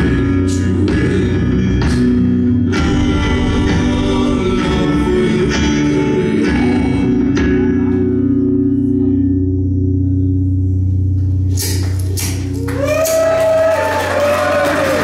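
A live band with a male singer and strummed guitar plays the last phrases of a song, then holds a final chord that rings out. About twelve seconds in, the audience breaks into cheering and applause with shouts.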